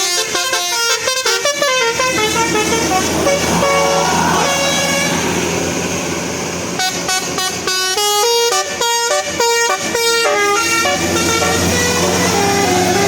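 Bus 'telolet' horn, a multi-trumpet air horn playing quick melodic runs of stepped notes in three bursts, the longest starting about seven seconds in, over the bus engine's low steady hum.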